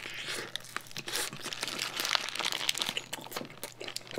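Biting into and chewing a paper-wrapped burger close to the microphone, the wrapper crinkling in the hands: an irregular run of small crackles and clicks.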